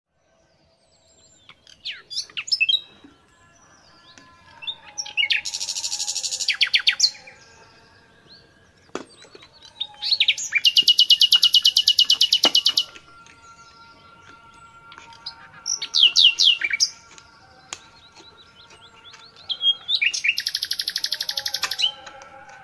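A songbird singing: quick falling chirps between four bouts of fast trills, each lasting one to three seconds. A couple of sharp clicks come between the trills.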